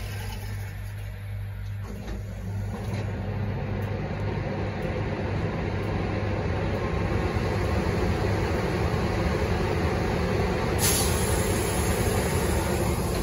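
Class 90 electric locomotive standing with its equipment running: a steady low hum under a growing rush of fan noise, getting louder over the first several seconds. A brief sharp hiss about eleven seconds in.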